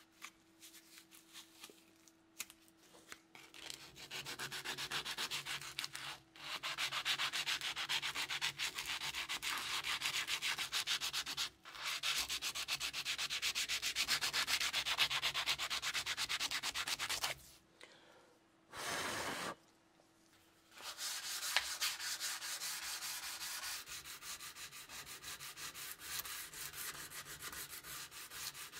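Sandpaper rubbed by hand in fast back-and-forth strokes along the rusty steel blade of a 1913 pattern bayonet, scouring off the rust. The scraping starts a few seconds in, stops for about three seconds past the middle, and grows lighter near the end.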